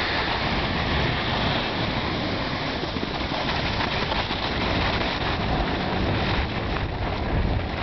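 Steady scraping rush of sliding downhill over packed snow, mixed with wind buffeting the microphone.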